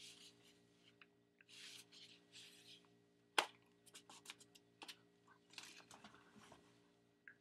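Faint rustling and scuffing from a person dancing in a hoodie, with several sharp clicks, the loudest about three and a half seconds in. A steady low electrical hum runs underneath.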